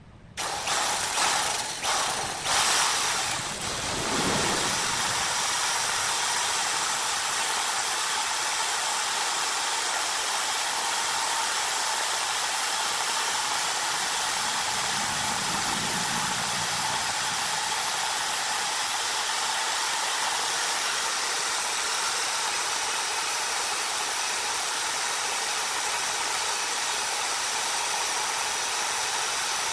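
Corded electric drill boring into a redwood blank: it starts in several short stop-start bursts over the first few seconds, then runs steadily under load with an even motor whine as the bit cuts into the wood.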